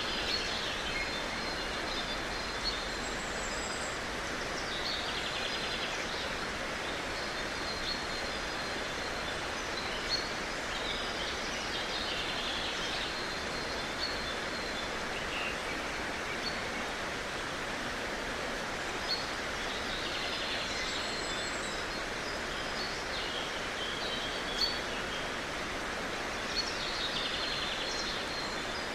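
Steady rushing of a stream with birds singing and trilling over it. The same bird phrases come round again about 17 seconds later.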